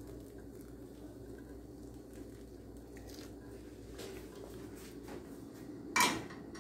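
Faint crackling and bubbling as just-poured boiling water soaks into potting soil in a plastic pot, then a sharp knock about six seconds in.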